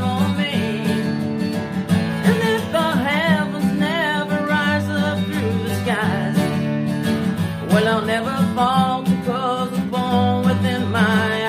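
Acoustic guitar song, with steady plucked guitar chords under a wavering melody line with vibrato.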